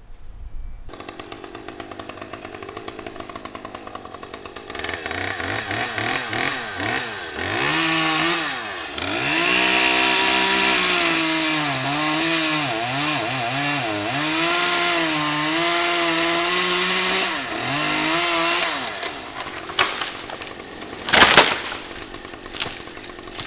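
Two-stroke chainsaw idling, then revved and cutting wood for about fifteen seconds, its pitch repeatedly dipping and recovering as the chain loads up in the dead oak, before dropping back to idle. A single loud crack comes a couple of seconds after the cutting stops.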